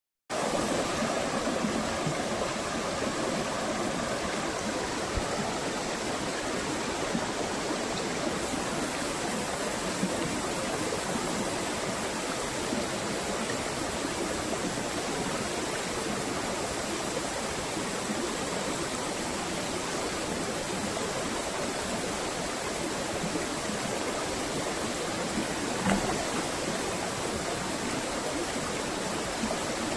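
Rushing water running steadily, with a brief knock near the end.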